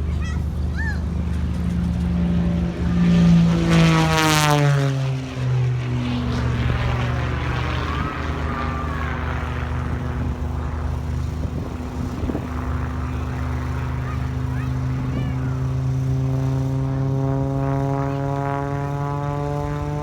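A motor-like whine with many overtones over a steady low hum. It drops sharply in pitch about four seconds in, holds steady, then slowly rises near the end.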